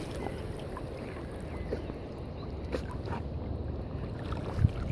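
Soft water sloshing and lapping around a golden retriever swimming, over a low steady rumble, with a dull bump near the end.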